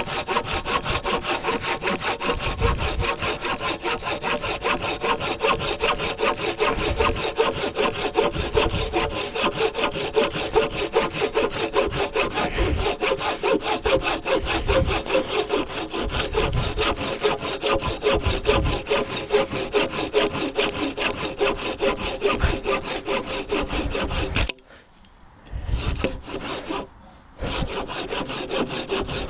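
Silky Gomboy folding Japanese pull saw cutting through a log by hand in quick, steady strokes, with two short breaks near the end.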